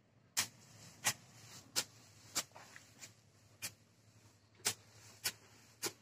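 A run of sharp knocks, about eight in six seconds, spaced fairly evenly.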